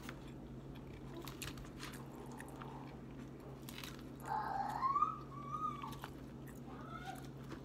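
A person chewing a mouthful of crisp salad lettuce, with short crunching and wet mouth clicks. About four seconds in, a closed-mouth 'mmm' rises and falls for about a second and a half. A faint steady hum lies underneath.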